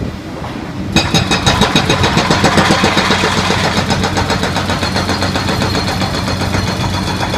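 Backhoe excavator's diesel engine running steadily; about a second in, its hydraulic hammer breaker starts, firing rapid, evenly spaced blows that continue to near the end.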